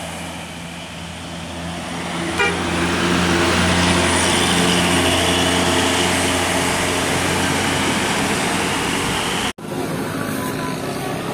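A bus engine under load on an uphill climb, growing louder over the first few seconds as the bus comes past and then running loud and steady. Near the end the sound cuts off abruptly, and a short multi-note bus horn tune (telolet horn) follows.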